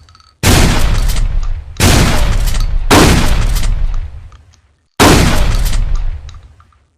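Trench shotgun fired four times, each blast followed by a long echoing tail. The first three come about a second apart, and the last comes after a pause of about two seconds.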